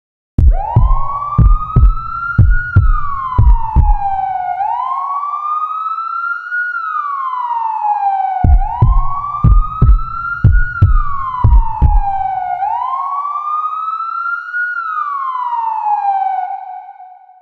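Emergency alert system alarm: an electronic siren tone that wails up and down, about two seconds rising and two falling, over and over. Twice, a run of deep, rhythmic thumps sounds beneath it for about four seconds. It starts about half a second in and fades out near the end.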